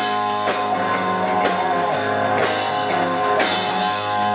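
Rock band playing live: electric guitar and drum kit in an instrumental passage, with strong accents about once a second.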